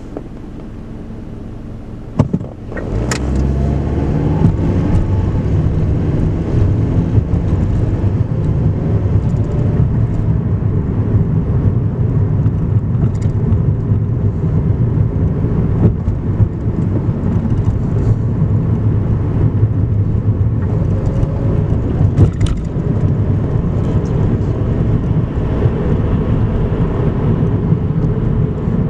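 Car engine and road noise heard inside the cabin. A quieter idle at a stop is followed by two sharp clicks, then the car pulls away about three seconds in. It then drives on with a loud, steady low drone and engine hum.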